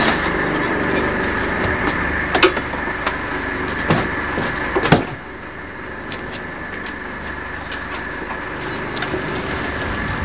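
A fishing boat's engine running steadily, with a few sharp knocks and clatters of gear being handled on deck, the loudest about two and a half and five seconds in. The engine noise drops a little just after the last knock.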